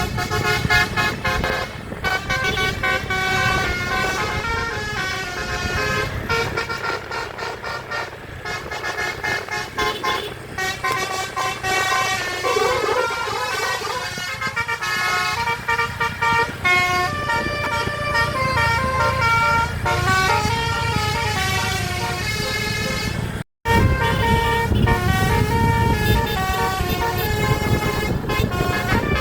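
A bus's Basuri multi-tone telolet horn playing a running melody of stepped notes over the low rumble of the bus's engine, with a split-second gap near the end.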